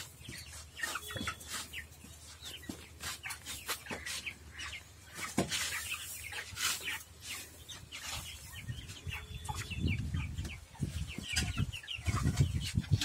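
A flock of broiler chickens clucking and calling in short, scattered notes. Near the end a shovel scrapes and knocks through floor litter, the loudest sound.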